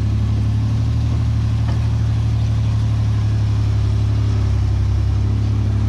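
A vehicle's engine running steadily with a low drone. Its note shifts slightly about four and a half seconds in.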